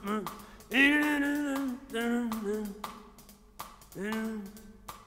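A man's voice making three drawn-out, wordless vocal sounds, the longest about a second in and the last one near the end.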